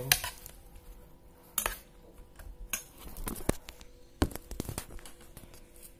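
A metal spoon clinking and scraping against a stainless steel pot in a series of separate knocks, as rice, tempe and rawon are stirred together.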